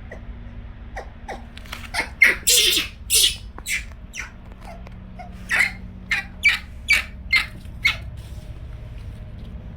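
Pet monkey giving a run of short, sharp squeaky calls, about a dozen, closely spaced in the middle stretch and tailing off near the end, over a low steady hum.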